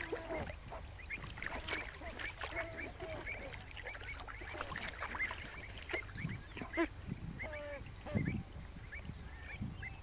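A flock of waterbirds calling at once: many short honking and quacking calls overlapping without a break, over a low steady rumble.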